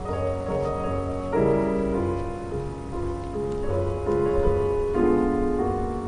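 Solo piano playing slow, held chords that change about once a second.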